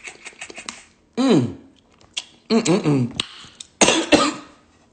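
Mouth sounds of a man eating crab legs: light wet smacking and sucking, then wordless vocal sounds: a falling moan about a second in, a wavering hum around halfway, and two loud short breathy bursts near the end.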